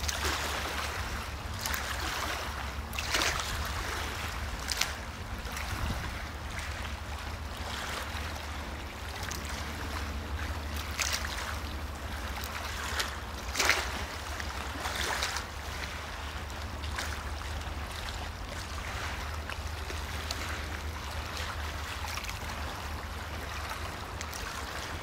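Choppy water lapping, with a steady low rumble underneath and a few louder splashes, the strongest about 13 to 14 seconds in.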